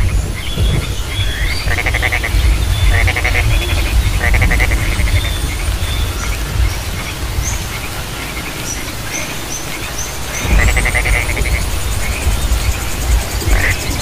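Frogs calling: short pulsed trills repeated every second or so, over a steady low rumble. Faint high chirps come in during the second half.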